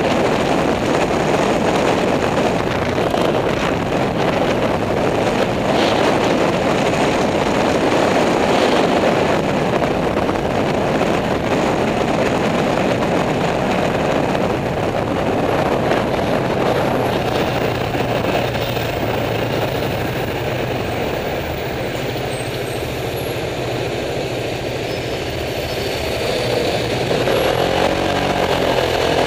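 A motor scooter's small engine running under way through city traffic, with a steady rush of wind and road noise. Near the end the engine note rises as it speeds up.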